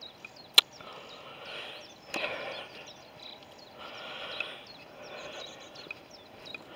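Countryside ambience: faint rustling that comes and goes in short spells, a scatter of small high chirps throughout, and a single sharp click about half a second in.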